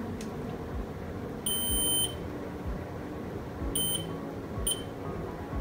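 Multimeter continuity beeper sounding as the probes touch a pin and a point on a MacBook Pro logic board: one beep of about half a second, then two short blips near the end. The beep means a connected path between the probed points.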